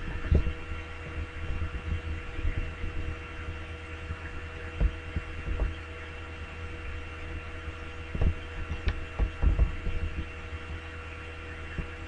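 Steady electrical hum with several fixed tones, broken by a scattering of short, soft, low thumps.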